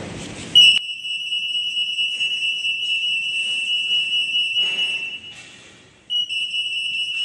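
Acousto-magnetic (AM) EAS anti-theft antenna alarm sounding a steady high-pitched tone as it detects a soft security label. The tone starts about half a second in, cuts out about five seconds in, and sounds again a second later.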